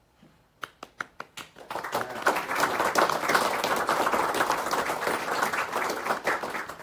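Audience applauding: a few scattered claps about half a second in, quickly building into full applause that tapers off near the end.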